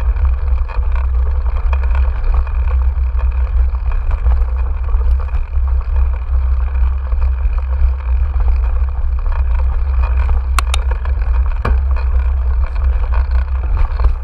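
Steady low rumble of wind and trail vibration on a GoPro's microphone as a mountain bike rolls along a dirt track, with a couple of sharp clicks from the bike or the gravel late on.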